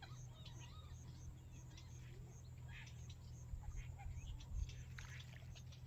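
Small birds chirping faintly, many short high calls with a regular high ticking among them, over a steady low hum.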